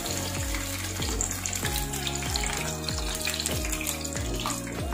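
Masala-coated fish pieces deep-frying in hot oil, a steady bubbling sizzle. Background music with a regular beat plays over it.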